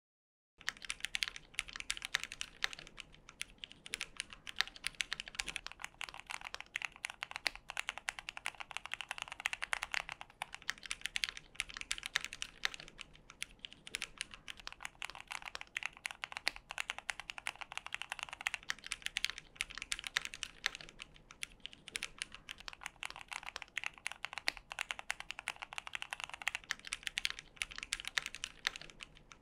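Fast continuous typing on a Keychron Q1 mechanical keyboard with Cherry MX Black Hyperglide switches, in stock configuration without the dampening mods (switch pads, tape mod, silicone sheets). It starts about half a second in, a dense stream of key clicks and bottom-outs.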